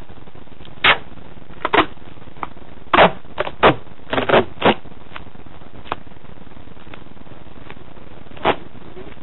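Duct tape being pulled off the roll and torn into strips: short rasping rips, a quick cluster of them between about three and five seconds in and single ones before and after, over a steady hiss.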